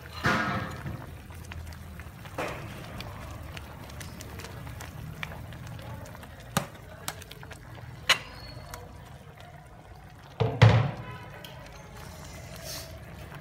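Soup at a rolling boil in a stainless steel pot, bubbling steadily, while a metal ladle stirs it and clinks against the pot. There are a few sharp knocks, the loudest about ten and a half seconds in.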